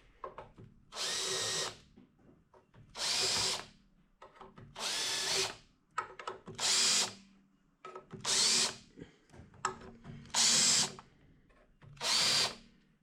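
Hand file deburring the edges of a freshly machined exhaust manifold flange: six long cutting strokes, one a bit under every two seconds, each with a quiet return between.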